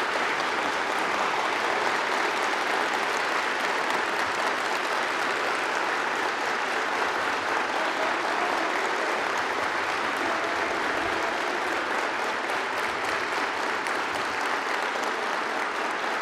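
A large audience applauding, with many hands clapping steadily and without a break.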